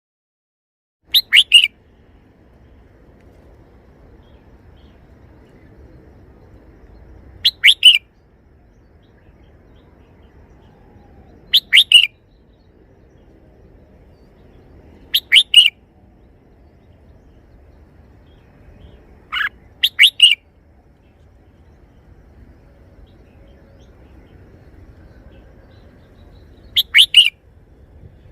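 Red-whiskered bulbul singing its short three-note song phrase six times, one phrase every four to seven seconds, with faint low background noise between phrases.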